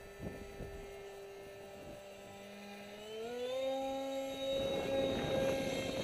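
Electric motor and 6x4 propeller of an RC foam jet, a steady whine that rises in pitch about three seconds in as the throttle is opened and then holds. A rushing noise joins it near the end.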